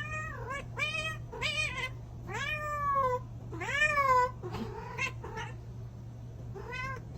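Domestic cat meowing repeatedly, about eight meows that each rise and then fall in pitch, the two longest and loudest in the middle, over a steady low hum.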